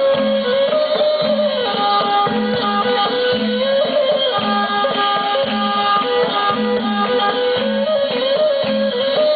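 Ruem trut folk-dance music: a stepping instrumental melody over a low held note and steady hand drumming.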